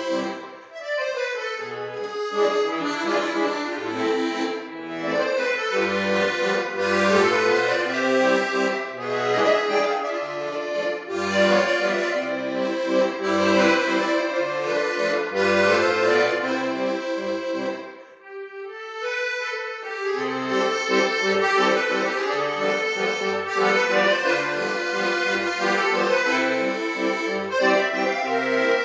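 Piano accordion played solo: a right-hand melody over regular left-hand bass notes and chords. About two-thirds of the way through, the bass drops out for about two seconds and only the treble melody sounds, before the bass comes back in.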